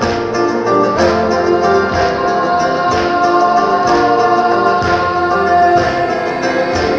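Music: held, choir-like voices over instrumental backing, with a soft pulse about once a second.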